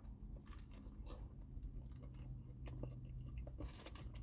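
Faint chewing of a mouthful of spicy fried chicken sandwich, with scattered soft mouth clicks and smacks over a steady low hum.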